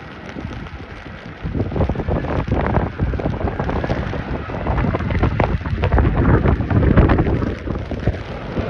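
Deep jet roar of an Airbus A380 on low approach, swelling about one and a half seconds in as it passes overhead, mixed with wind buffeting the phone microphone.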